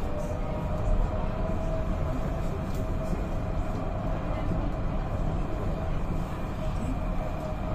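Tram running along its rails, heard from inside the car: a steady low rumble of wheels on track with a steady whine over it.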